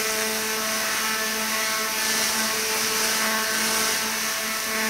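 Electric buzzing effect for Tesla coil lightning: a steady pitched hum with a hiss over it, unchanging in level.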